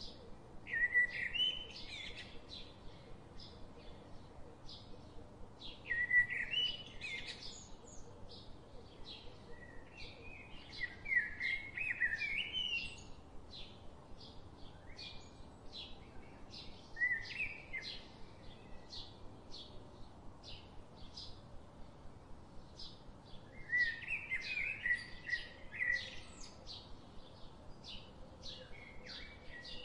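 Songbirds singing: short warbling, chirping phrases every few seconds over a steady run of short high ticks, about three a second.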